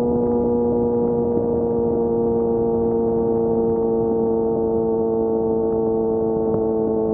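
Kawasaki Ninja ZX-6R inline-four running at steady high revs through an open M4 exhaust with the dB killer removed: a constant, loud drone whose pitch sinks very slightly.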